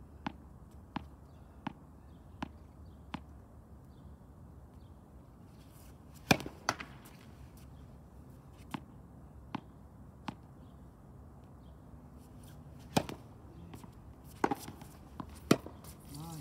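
Tennis balls being hit and bouncing. In the first few seconds there is a run of light taps, about one and a half per second, and later come a few louder, sharp racket-and-ball hits spaced one to several seconds apart.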